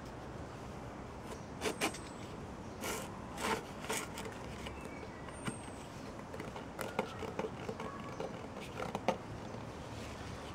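Scattered scrapes, rustles and light knocks as a plastic pipe jammed in the soil is twisted and worked loose by hand, then pulled free.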